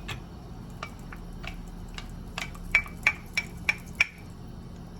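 Kitchenware clinking against a pan: about a dozen light taps with a short ringing tone, sparse at first, then quicker and louder in a run of five near the end.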